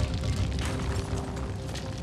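Low rumble of a film explosion dying away, fading steadily, with faint held music tones beneath it.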